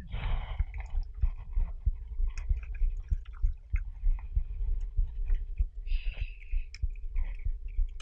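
Hooked small fish splashing at the water's surface as it is reeled in to the boat, with a short splash right at the start and another about six seconds in. Under it, repeated low muffled thumps, two to three a second, which are the loudest thing throughout.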